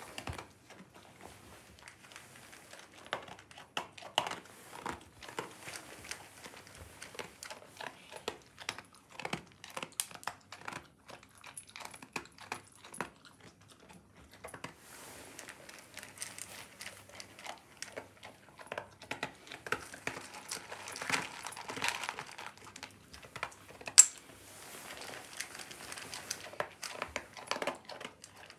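A Doberman eating dry kibble from a stainless steel bowl: a rapid, irregular run of crunching and chewing, with one sharp, louder click late on.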